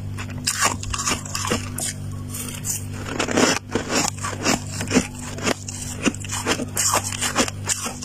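Powdery freezer frost crunching in a series of sharp, crisp crackles, several a second, over a low steady hum.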